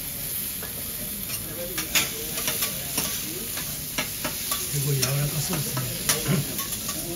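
Kobe wagyu steak sizzling on a hot teppanyaki griddle as it is cut into cubes. The steel knife and spatula click and scrape against the plate several times, sharpest about two, four and six seconds in.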